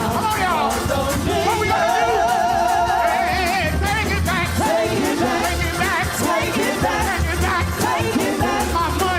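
Live gospel music: a voice singing long, wavering held notes with heavy vibrato over a band with bass and drums keeping a steady beat.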